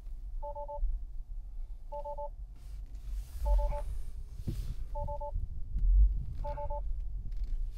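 Tesla's electronic warning chime: a short two-tone double beep repeating about every one and a half seconds. It is the car's alert for its faulty hood latch sensor.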